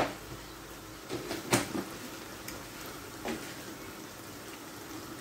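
Stew simmering in a pan on a gas burner with a faint, steady bubbling, broken by a sharp click at the start, a few light knocks about a second and a half in, and one more about three seconds in.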